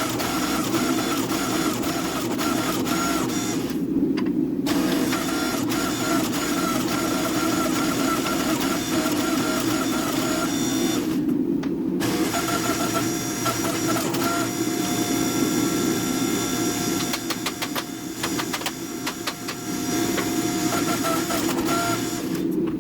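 A motor-driven workshop machine running steadily with a whine. Its higher sound cuts out briefly twice, about four and eleven seconds in, and a run of rapid ticking comes in the second half.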